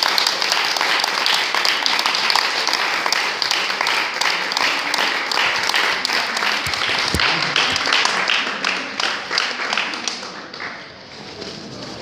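Audience applauding: a dense patter of many hands clapping that fades out about ten seconds in.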